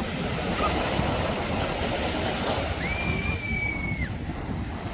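Steady rushing noise of surf and wind on the microphone. Just under three seconds in, one high tone is held for just over a second, then stops.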